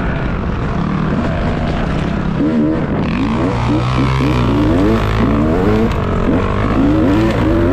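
Dirt bike engine revving hard and repeatedly, its pitch sweeping up and dropping back many times in quick succession, over a steady low drone.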